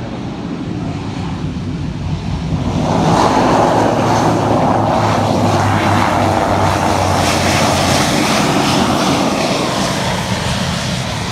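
ATR 42-600 twin turboprop engines and propellers on the landing roll, the propeller noise growing loud about three seconds in and holding steady before easing slightly near the end.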